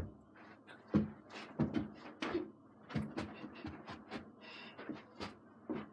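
Irregular thuds and bumps of feet landing and stamping on a living-room floor during a gymnastics floor routine, about ten of them, the loudest at the start and about a second in.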